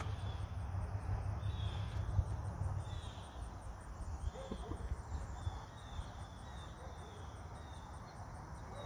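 Insects chirping outdoors: a short high chirp that repeats steadily, over a low rumble that fades after about three seconds.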